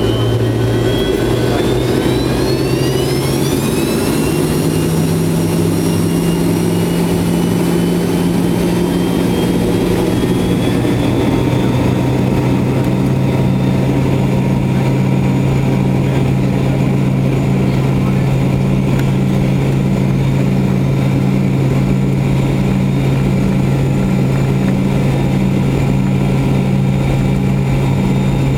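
Whine of the DC-9-32's rear-mounted Pratt & Whitney JT8D-9A turbofan heard inside the cabin, rising in pitch over the first few seconds as the engine spools up and then holding steady over a steady low hum.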